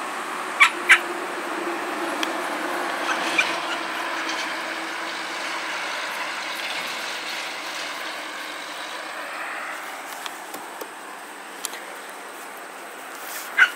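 Dachshund-cross puppies giving short yips, two quick ones about a second in, another a few seconds later and one near the end, over steady background noise that eases off in the second half.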